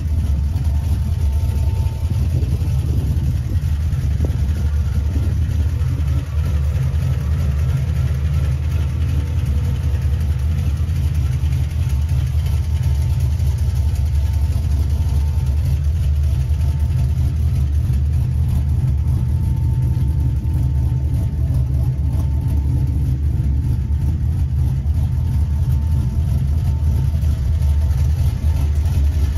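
1986 Chevrolet C10 pickup's engine idling steadily with a deep, even low rumble.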